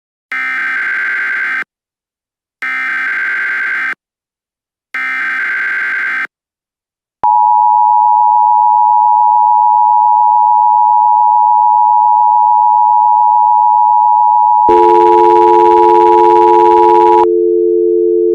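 Emergency Alert System alert signal: three short buzzing bursts of digital header data about a second apart, then the steady, loud two-tone attention signal. Near the end a lower two-note tone with a rough buzz comes in over it. The attention signal cuts off, and the lower tone carries on briefly.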